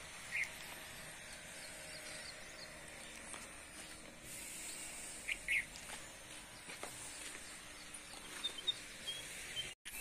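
Outdoor rural ambience: a steady hiss with a few short bird chirps, once about half a second in and twice more around five and a half seconds, and faint high peeps near the end. The sound drops out for a moment just before the end.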